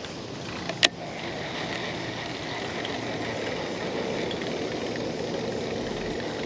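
Steady rumble of distant road traffic, with one sharp click about a second in.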